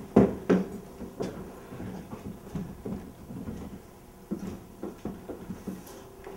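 Scattered knocks and thumps, about a dozen at uneven intervals and loudest near the start, as props and furniture are shifted about on a stage during a scene change.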